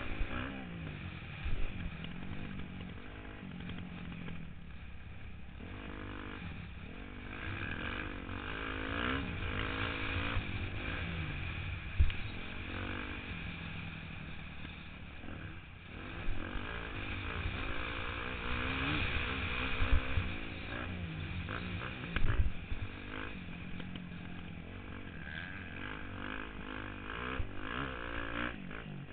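Dirt bike engine revving up and dropping off again and again as it is ridden around a motocross track, heard from a helmet-mounted camera. Several sharp knocks cut through, the loudest about twelve seconds in.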